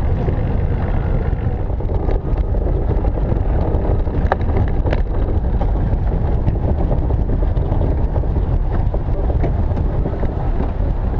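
Velomobile rolling over asphalt and then cobblestones, heard from a camera mounted on its nose: a steady low rumble of road and wind noise, with a few sharp clicks or rattles about four to five seconds in.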